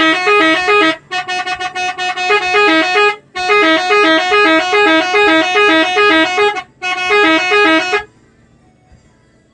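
An Indonesian 'telolet' bus horn, a multi-trumpet air horn, plays a quick melody of alternating notes. It breaks off into a run of rapid short toots, resumes the tune in a few phrases, and stops about eight seconds in.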